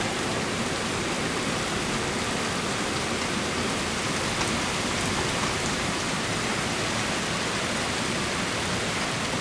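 Torrential downpour: heavy rain falling steadily on the ground.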